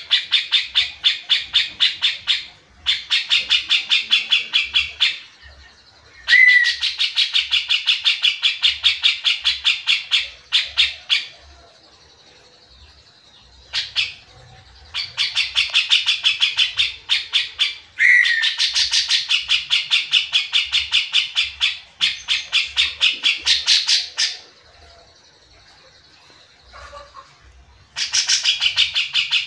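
Cucak jenggot (grey-cheeked bulbul) in lively 'gacor' song: rapid runs of evenly repeated chattering notes, about nine a second, in bursts of two to six seconds with short pauses between. A couple of bursts open with a downward-swooping note.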